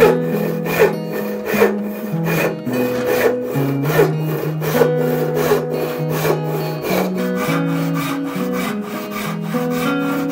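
Large hand saw ripping down into the end of a board held upright in a vise, with a steady rhythm of rasping push-and-pull strokes.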